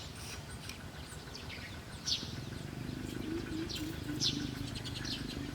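Birds chirping: a few short, sharp high calls spaced a couple of seconds apart, over steady outdoor background noise. A low wavering sound comes in about three seconds in and carries on.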